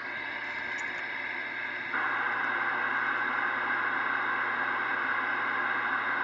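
Steady hiss of static from a CB radio receiver with no voice on the channel, jumping suddenly louder about two seconds in.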